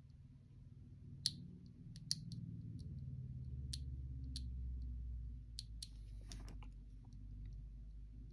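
Scattered sharp clicks and taps, about ten, from small plastic Beyblade parts being handled while stickers are pressed on, with a brief scrape about six seconds in, over a low steady hum.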